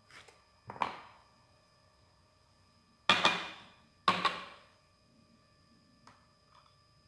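Kitchenware being set down on a countertop: three sharp knocks with a short ring, one about a second in and two close together near the middle, then a few faint light taps.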